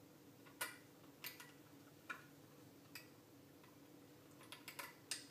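Irregular sharp plastic clicks and taps, about eight, with a cluster near the end, as the circuit board of a RigExpert AA-200 antenna analyzer is pressed back into its plastic case, over a faint steady hum.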